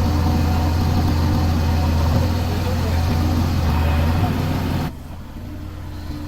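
Mahindra 275 DI tractor's three-cylinder diesel engine running steadily with a deep, even drone. About five seconds in the sound drops abruptly and the engine carries on quieter.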